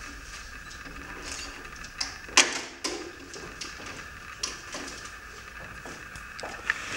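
Footsteps and small handling knocks on a wooden stage floor, with one loud thud about two and a half seconds in, over a steady hiss.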